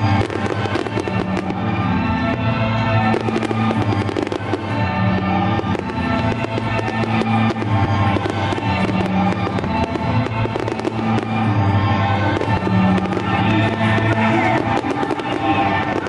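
Fireworks display: a rapid run of sharp bangs and crackles from bursting shells, heard over loud music.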